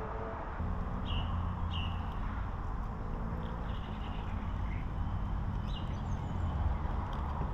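A few short bird chirps, about a second in, near two seconds and near six seconds, over a steady low hum.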